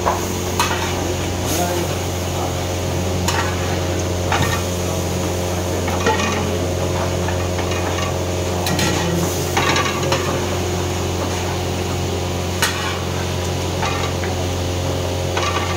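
Cooking in a large pot: a metal utensil now and then knocks and scrapes against the pot, over a continuous low kitchen hum.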